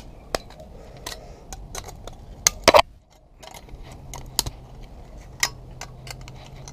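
Irregular sharp clicks and snaps of metal pliers breaking parts off a TV circuit board, with a few louder snaps about two and a half seconds in.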